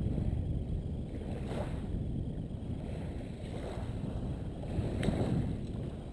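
Outdoor wind rumbling on the microphone with light surf on the beach: a steady low rush that swells briefly twice.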